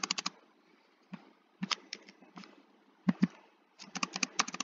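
Clicks of a computer keyboard and mouse. A few spread-out clicks are followed by a quick run of them near the end.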